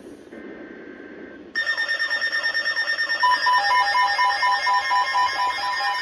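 NOAA Weather Radio alert tones for an incoming severe-weather warning. About a second and a half in, a loud burst of pulsing electronic tones begins. From about three seconds it becomes a rapidly alternating two-pitch beeping alarm.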